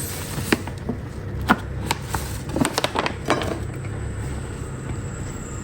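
A utensil knocking and scraping against a mixing bowl as cake batter is mixed: a few scattered clicks in the first few seconds over a low steady hum.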